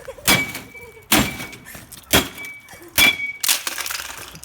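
A baseball bat striking the metal shell of a gutted microwave oven, five hard blows about a second apart, each with a brief metallic ring.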